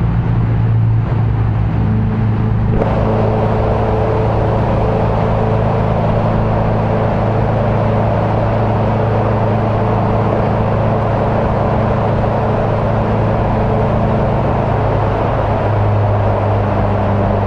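Honda CBR650F's inline-four engine running at a steady cruise, its pitch holding level, over a steady rushing hiss of wind and a rain-soaked road. The hiss grows brighter about three seconds in.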